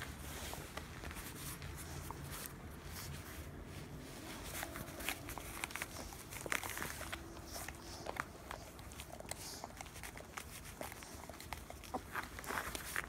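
Border collie puppies play-wrestling: scattered soft scuffles and small clicks of paws and mouths on a foam mat, over a faint low hum.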